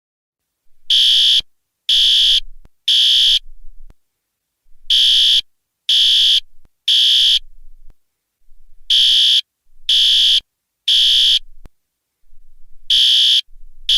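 Building fire alarm sounding in the temporal-three evacuation pattern: three high-pitched beeps, a pause, then three more, starting about a second in and repeating over and over.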